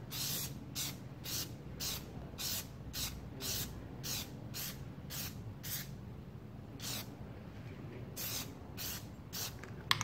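Plasti Dip rubber-coating aerosol can spraying in a quick run of short hissing bursts, about two a second, pausing briefly around six to eight seconds in.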